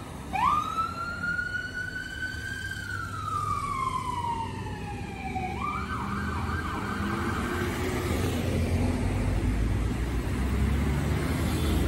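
Ambulance electronic siren: one slow wail rising and then falling, then switching just before 6 s to a faster warble that fades as the ambulance pulls away. Low road traffic noise grows near the end.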